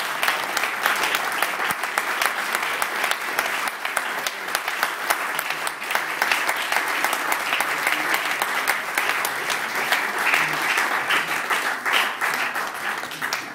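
Audience applauding: many hands clapping in a dense, steady patter that dies away at the very end.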